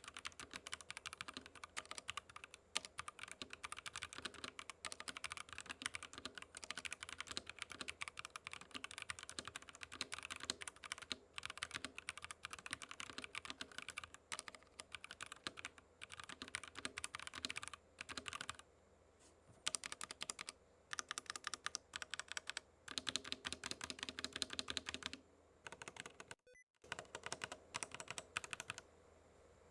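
Zifriend ZA68 hot-swappable mechanical keyboard being typed on quickly, a dense stream of key clicks broken by a few short pauses in the second half.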